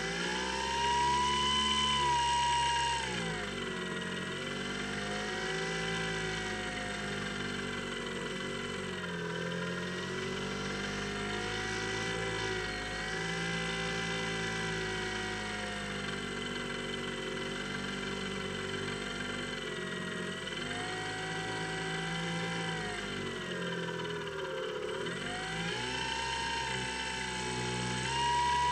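Electric motor and propeller of a Skywalker X7 flying-wing model aircraft in flight, a steady whine. It is at high throttle at first, then the pitch drops after about three seconds and wavers up and down several times as the throttle is eased and reopened, climbing back to full pitch near the end.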